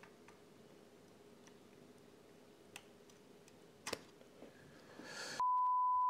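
A few faint clicks of a cheap IC-puller tool working at chips on a circuit board, the sharpest a little before four seconds in. A little after five seconds a loud, steady test-tone beep cuts in.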